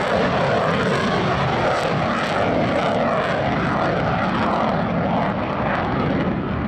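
Twin General Electric F404 turbofans of an F/A-18 Hornet running at high power with afterburners lit, a loud, steady rushing noise as the jet banks past.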